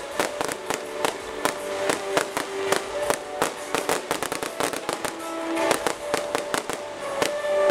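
Fireworks display: a fast, continuous run of sharp bangs and crackles from firework fountains and shells, over music with long held notes.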